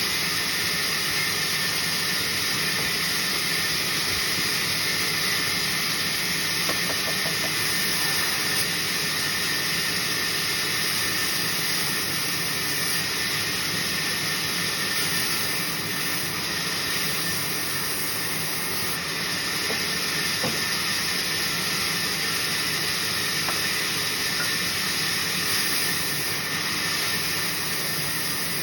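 Sawmill saw machine running steadily: a constant hiss with a steady high whine, unbroken and even in level throughout.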